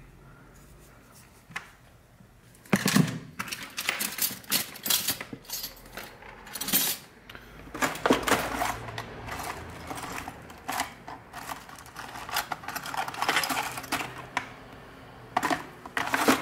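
Small hard objects, metallic-sounding, clinking and rattling in irregular clusters, as if being handled or rummaged through. It starts about three seconds in after a quiet opening and goes on in bursts.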